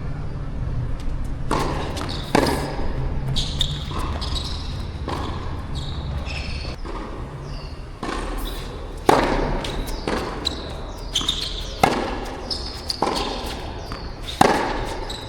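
Tennis ball being hit by rackets and bouncing during a rally: sharp irregular hits a second or a few apart, over a steady low rumble of wind on the microphone.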